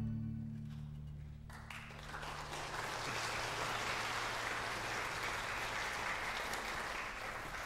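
The string orchestra's last low chord rings away, and about a second and a half in the audience breaks into applause, which builds and then holds steady.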